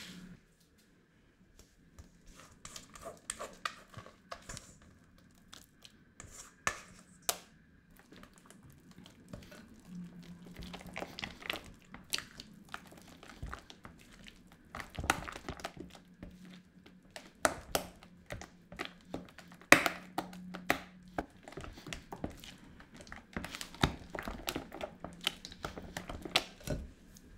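Silicone spatula folding thick tofu-and-coconut cream in a glass bowl: irregular scrapes and taps against the glass with soft squelches of the cream.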